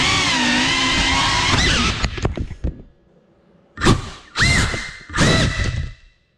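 GEPRC Cinelog 35 cinewhoop drone's brushless motors and propellers whining at steady throttle, then faltering and cutting out about two seconds in as the drone crashes. After about a second of quiet, the motors give three short bursts of whine.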